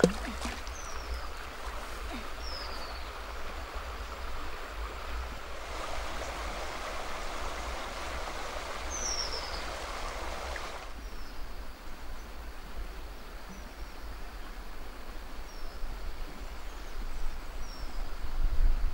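River water flowing with a steady rush, and short high falling bird chirps every few seconds. A low rumble runs underneath and grows louder near the end.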